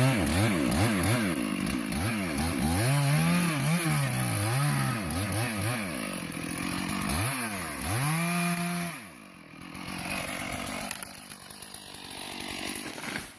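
Two-stroke chainsaw cutting into a tree trunk, its engine pitch dipping and recovering again and again as the chain bogs under load in the cut. About eight seconds in it revs briefly, then drops away as the throttle is released.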